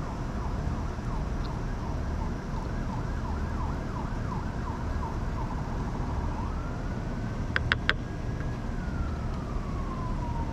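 Emergency-vehicle siren running through a quick warbling yelp, then switching to a slow wail that rises and falls, over a low steady background rumble. Three quick sharp clicks come about three quarters of the way through.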